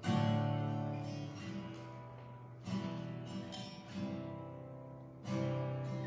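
Acoustic guitar strumming the opening chords of a song. Each chord is struck and left to ring out, a new one every second or so.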